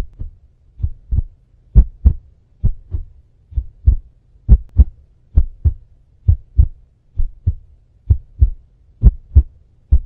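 A heartbeat: a steady lub-dub of paired low thumps, about eleven double beats in ten seconds.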